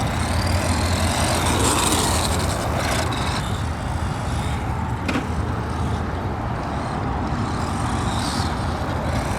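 Steady rumbling wind noise on the microphone, with a sharp click about five seconds in.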